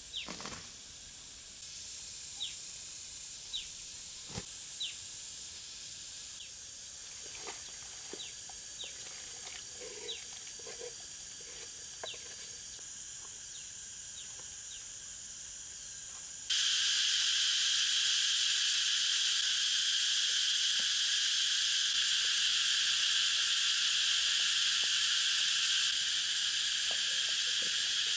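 Steady high-pitched insect drone with a few soft knocks and short high chirps. About halfway through it jumps suddenly to a much louder, denser insect chorus that holds steady.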